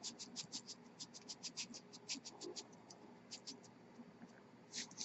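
Anhydrous copper sulfate powder being dispensed into a glass measuring cup: a fast run of light, dry scratching ticks, about six a second, that thins out after about three seconds, with a louder scratch near the end.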